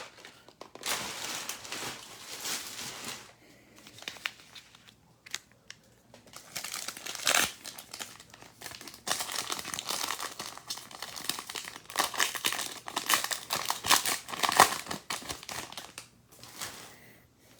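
Plastic-foil wrapper of a Topps Heritage baseball card pack crinkling and tearing as it is opened, in irregular bursts with a few sharper crackles.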